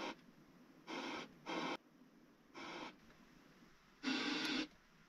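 Cabinet-mounted car stereo being tuned across the FM band, giving four short bursts of radio static with quiet gaps between them.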